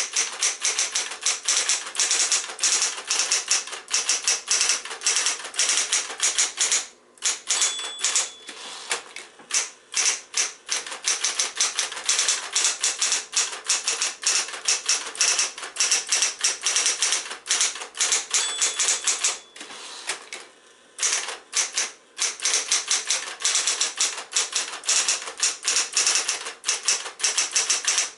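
Singer T82 electric portable typewriter, a Smith-Corona build, typing at speed: a rapid run of key strikes, with two short pauses. A brief ring sounds twice.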